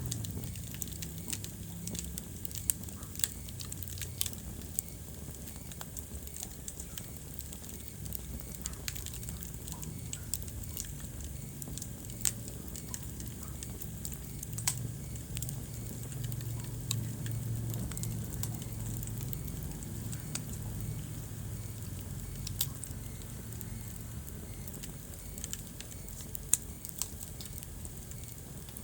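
Wood fire burning in a fireplace: a steady low rumble of flames with frequent small crackles and a few louder pops scattered throughout.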